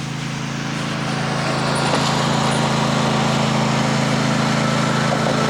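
A small engine running steadily, growing louder over about the first two seconds and then holding level.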